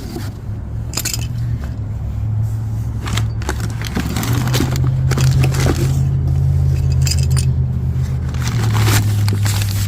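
Metal tow-kit hardware being handled and unpacked: short scrapes and clinks of safety cables and hooks. Under them a steady low engine hum that shifts in pitch a few times.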